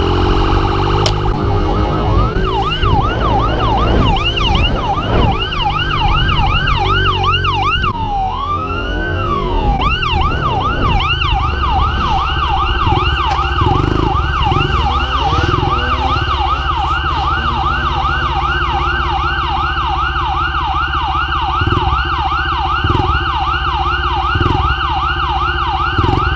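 Police car siren in its fast yelp, about three rising-and-falling sweeps a second, starting a couple of seconds in and changing briefly to a slower wail sweep around the middle before returning to the yelp. Underneath, a dirt bike engine runs steadily, with a few short thumps near the end.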